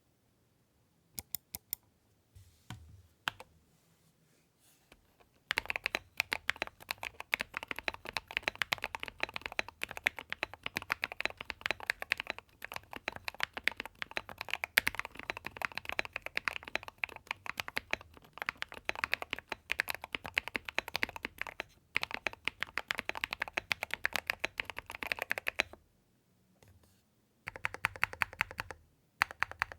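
Typing on a Keychron mechanical keyboard: a few scattered keystrokes at first, then fast continuous typing from about five seconds in, a brief pause near the end, then typing again.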